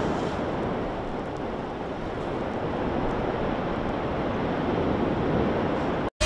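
Steady, loud rushing noise with no clear tone, cutting off abruptly just before the end.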